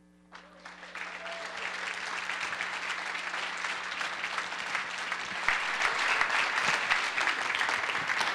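Audience applauding. The clapping starts faintly about half a second in and builds to full applause.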